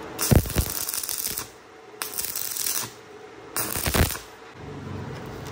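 Stick (arc) welding: a flux-coated electrode striking an arc against a steel bolt and bar, crackling and sizzling in three short bursts as the bolt is tack-welded in place.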